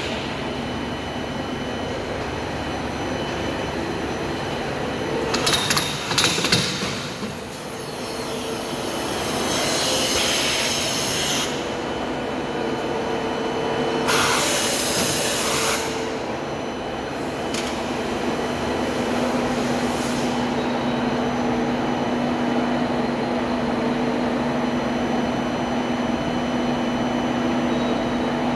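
Tube punching machine running with a steady mechanical hum, a cluster of clanks about six seconds in, and two stretches of hissing in the first half.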